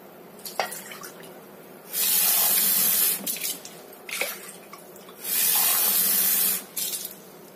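Water poured from a glass into an empty speckled non-stick pan, in two splashing pours of about a second each, with a short splash between them.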